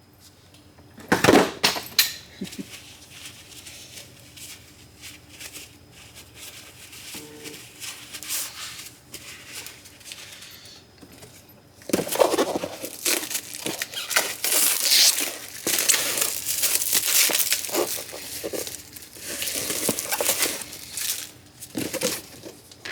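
Crinkling, rustling handling noise, with two sharp knocks about a second in; about halfway through the rustling grows much louder and denser.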